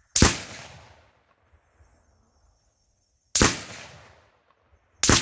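Three rifle shots, each with a short echoing tail; the second comes about three seconds after the first and the third under two seconds later. No explosion follows, because the Tannerite in the target fails to go off, which the shooters put down to it being wet or old.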